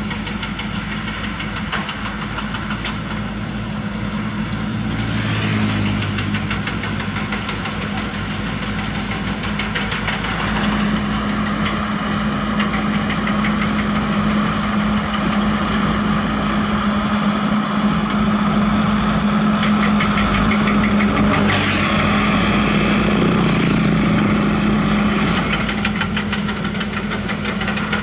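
Komatsu D31P crawler dozer's diesel engine working under load as the blade pushes soil, getting louder briefly about five seconds in and again about ten seconds in, then holding there until near the end.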